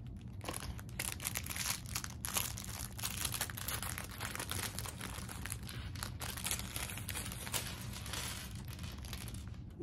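Thin plastic Lego parts bag crinkling continuously as it is handled and searched through, with many small clicks of plastic pieces.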